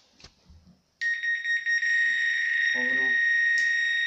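Zfish Helios fishing bite alarm set sounding its loud alarm mode: a continuous high-pitched electronic tone that starts abruptly about a second in and holds steady.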